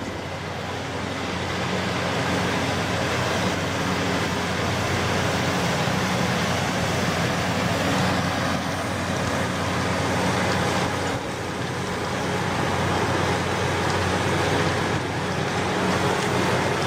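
A machine's engine running steadily under load, with a constant low drone and broad mechanical noise.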